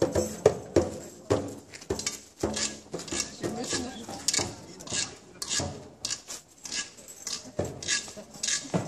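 Tambourine jingles struck and shaken in a steady beat, about two to three hits a second.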